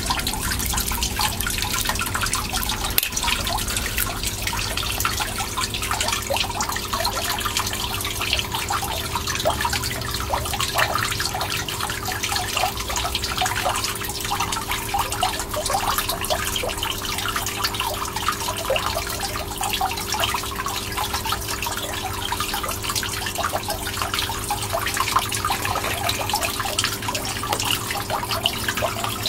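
Water trickling and dripping steadily, a dense, even patter with a faint steady hum underneath.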